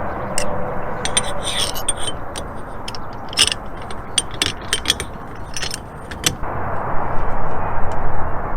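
A run of sharp clicks and scrapes from small hardware being handled, over a steady rushing noise that grows louder about six and a half seconds in.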